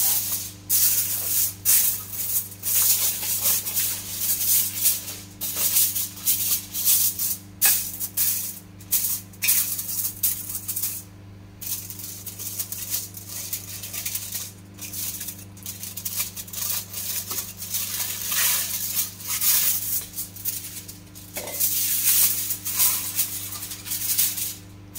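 Aluminium foil crinkling and rustling in irregular bursts as it is spread and pressed down over a baking tray, over a steady low hum.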